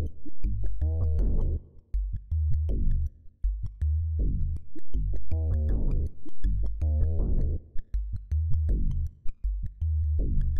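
Background electronic music: synthesizer phrases over a deep, pulsing bass and a ticking drum-machine beat.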